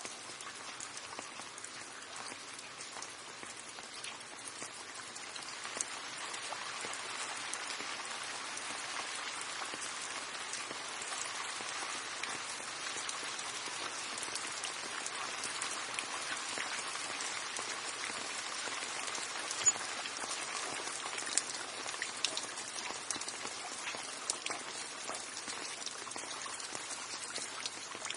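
Steady rain falling, an even hiss with individual drops ticking sharply on a hard surface; the rain grows a little heavier after the first few seconds.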